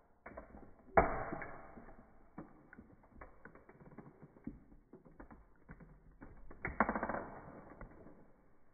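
A toy car's body crunching and creaking under a high-heeled shoe: a sharp crack about a second in that crackles away, scattered small clicks, and a second burst of crackling about two seconds before the end.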